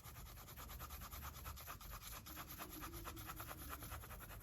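Coloured pencil shading on sketchbook paper: a faint, rapid run of even back-and-forth scratching strokes.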